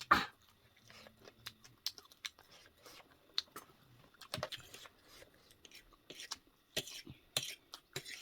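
Close-up eating sounds: a person chewing and biting food, heard as an irregular string of short clicks and smacks, the loudest right at the start.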